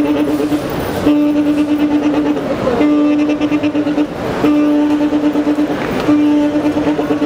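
Saxophone sounding the same long held note over and over, each lasting a second or more with short breaks between, its loudness pulsing quickly.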